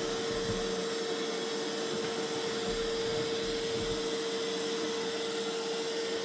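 Mova Z60 robot vacuum running in vacuum-only mode on a mat, its mop roller disengaged: a steady whir of suction with a constant hum tone.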